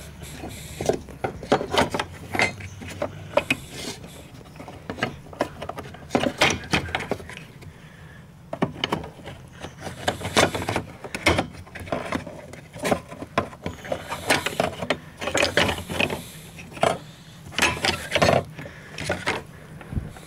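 Irregular clicks, knocks and scrapes of hard plastic and metal as the lock ring of a VW Golf 5 fuel pump flange is worked loose and lifted off the tank opening.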